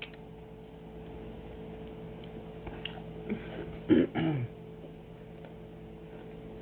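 Steady low electrical hum with a few faint clicks, and about four seconds in a short throaty vocal sound from the person eating.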